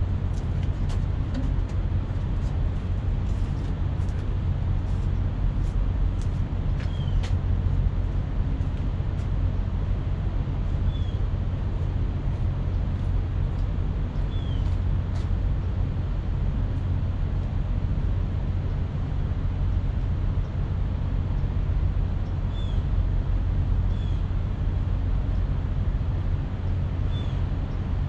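Steady low rumble of idling diesel truck engines, with a few sharp clicks in the first several seconds and some faint, short high chirps later on.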